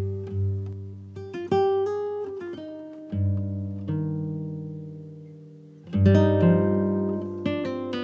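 Background music: acoustic guitar playing slow picked notes and chords that ring out and fade, the loudest chord struck about six seconds in.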